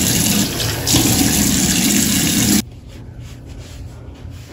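Bathroom sink tap running, water pouring steadily into the basin, then shut off abruptly about two and a half seconds in.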